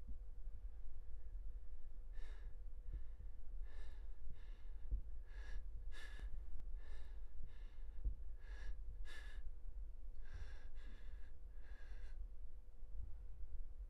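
A person breathing audibly in short, sharp breaths, about a dozen of them at uneven spacing, stopping about twelve seconds in, over a steady low hum.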